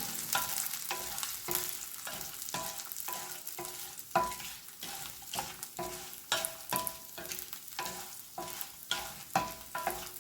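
A metal spoon stirring lentils, garlic and dried red chilies as they sauté in a little oil in a metal pan. It scrapes and knocks about twice a second, and each stroke makes the pan ring briefly over a faint sizzle.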